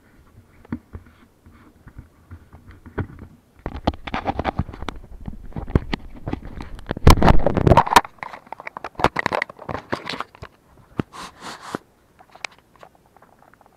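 Handling noise from a small action camera being carried by hand: irregular rubbing, scrapes and knocks right on the microphone, loudest about seven seconds in.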